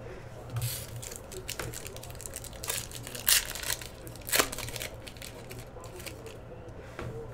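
Foil wrapper of a Topps Gold Label trading-card pack crinkling and tearing as it is pulled open by hand, in irregular sharp crackles over a low steady hum.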